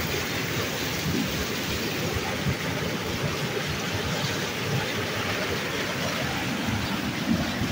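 Muddy floodwater rushing and pouring over a concrete channel edge in a steady, unbroken rush.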